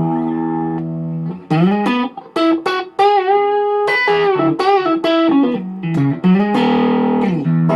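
Electric guitar with vintage single-coil Strat pickups played through the distortion channel of a Sebago Double Trouble 25-watt combo amp. It opens on a held note, then runs a lead phrase of picked notes with string bends and vibrato, and ends on long sustained notes.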